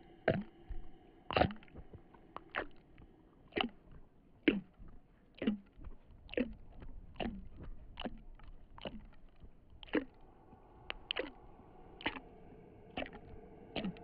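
Eerie ambient soundtrack: sharp strokes about once a second, each dropping in pitch, over a low steady drone.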